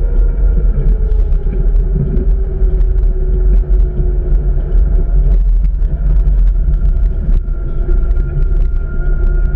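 Heavy service rig carrier truck under way: a constant deep rumble of engine and road noise with a steady drivetrain whine that sags slightly in pitch over the first few seconds. Scattered light ticks and rattles run through it.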